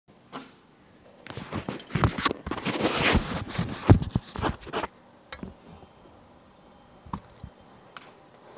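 Rustling and knocking from a person walking inside a truck trailer with a phone held close to the body, dense for about four seconds, then a few single knocks.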